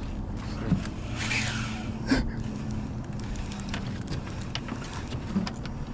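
Baitcasting reel being cranked to bring in a hooked striped bass, with scattered small ticks and a sharp click about two seconds in, over a steady low motor hum.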